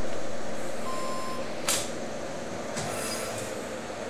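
Short electronic beeps at one steady pitch, each about half a second long, with uneven gaps between them. A sharp click sounds about a second and a half in.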